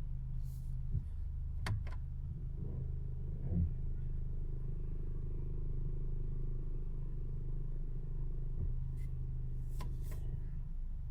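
Mercedes All-Terrain engine running steadily at idle, with a few sharp rattling clicks, two close together near the start and two near the end. This is the under-hood rattle that the owner blames on poor build quality and too much plastic.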